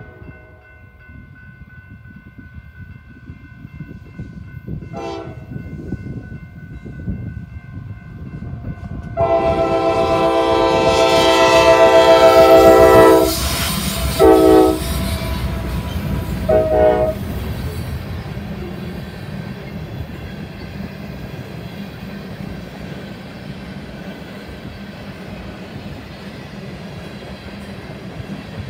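Norfolk Southern diesel freight locomotives sound their air horn for a grade crossing. A faint short blast comes first, then a loud long blast about nine seconds in, then two short ones. After that the locomotives rumble past, followed by the tank cars rolling by with clicking wheels, while the crossing bell rings.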